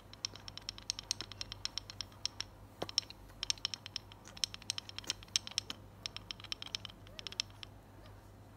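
Rapid bursts of light, sharp clicks and taps, several a second, with short pauses between the bursts, stopping shortly before the end.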